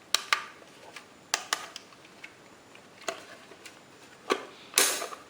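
Sharp plastic clicks and knocks from a handheld RC quadcopter transmitter being handled, spaced irregularly. About five seconds in comes a short, louder rasp.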